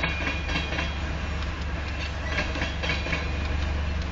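Union Pacific grain hopper cars rolling past at low speed: a steady low rumble of wheels on rail with light clicking.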